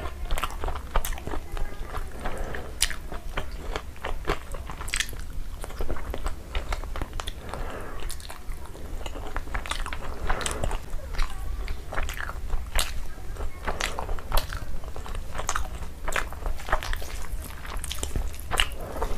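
Close-miked chewing and lip smacking of a person eating rice and chicken curry by hand, with many irregular sharp, wet clicks of the mouth.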